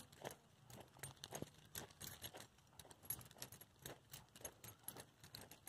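Faint footsteps crunching on wood-chip mulch, a few irregular crunches a second.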